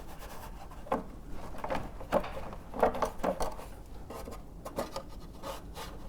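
Hands working at a motorcycle's front end: a handful of small knocks and clicks with light rubbing, from freeing cables that are tied in around the front mudguard.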